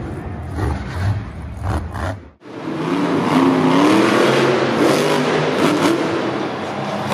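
Monster truck engines revving hard, the pitch climbing and falling with the throttle. The sound breaks off abruptly about two seconds in, and another truck's engine takes over.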